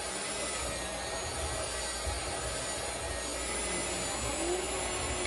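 Electric hand mixer running steadily, its beaters turning in a wooden bowl of flour, butter and sugar dough.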